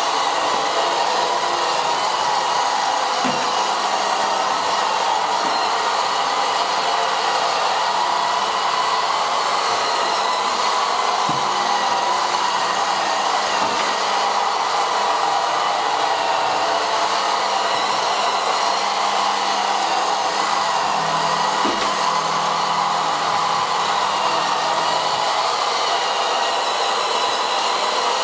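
Vileda robotic vacuum cleaner running: a steady whirring hiss with several high steady whining tones. It is fairly loud, about the noise level of a conventional vacuum cleaner.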